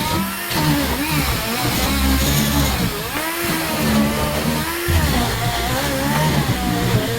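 Background music with guitar and a moving bass line.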